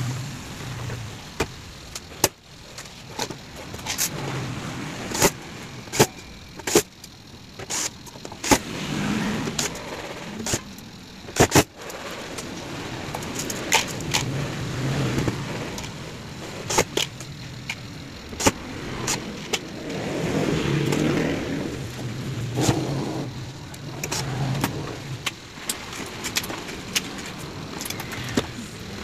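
Black metal case panels of an audio mixer being fitted back on by hand: scattered sharp clicks and knocks of sheet metal against the chassis and the bench, with spells of a low hum in between.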